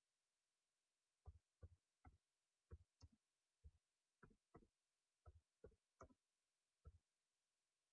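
Faint computer keyboard typing: about a dozen separate keystrokes at an uneven pace, starting about a second in.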